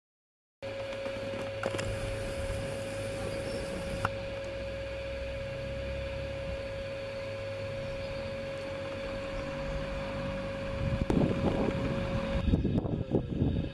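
Large-scale garden model electric train running on outdoor track: a steady motor hum with a constant whine. From about eleven seconds in comes a louder, uneven rumble as the train runs close by, and the whine stops suddenly about a second later.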